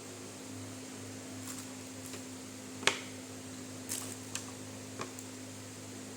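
A few short clicks and taps from objects being handled, the sharpest about three seconds in, over a steady electrical hum.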